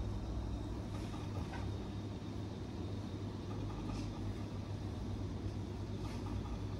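Steady low hum around a fixed-odds betting terminal, with a few faint clicks as its £2 spins run.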